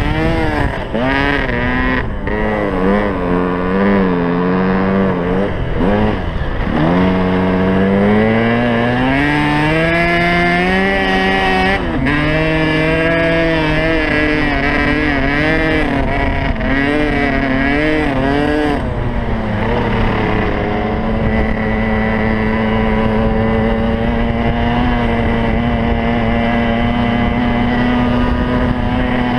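Dirt bike engine revving up and down repeatedly as the throttle is worked while riding through snow. About two-thirds of the way through it settles into a steady pitch.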